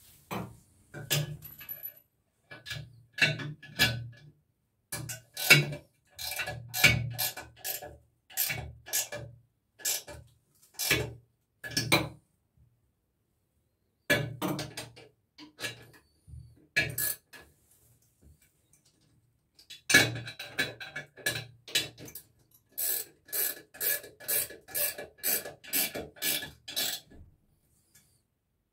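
19 mm ratchet wrench clicking in repeated short strokes as it tightens the nuts fixing a washbasin to its wall studs. The strokes come in groups with two short pauses, then a steady run of about two strokes a second near the end.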